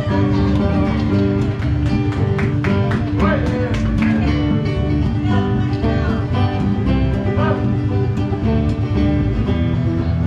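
Bluegrass-style string music with guitar and other plucked strings, with people's voices over it.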